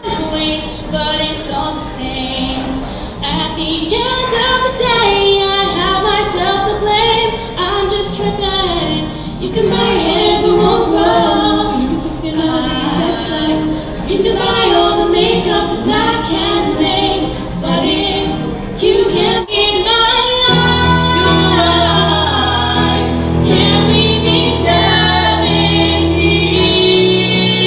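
Several young women singing a song together in harmony. About twenty seconds in, it cuts to a different song: held low chords with singing over them.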